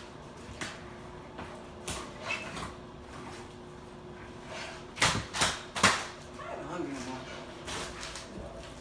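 Three sharp knocks close together about five to six seconds in, over faint muffled voices and a steady low hum in a kitchen.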